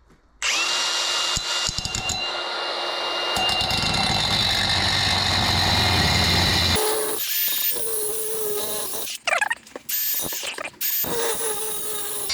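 Power cutting tool starting up about half a second in and cutting through a length of exhaust pipe, with a steady high whine and a heavier, rougher sound while it bites into the metal. After the cut it stops and restarts in several short bursts, and switches off at the very end.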